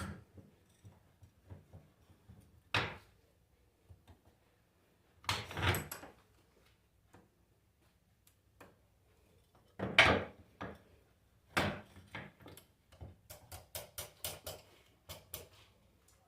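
Scattered knocks and clinks of tools and alternator parts being handled during disassembly, with a quick run of light clicks near the end.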